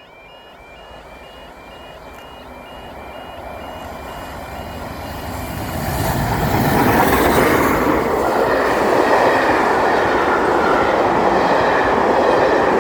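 A steam-hauled passenger train with a long rake of coaches passes at speed. Its rumble builds over about six seconds, then holds loud and steady.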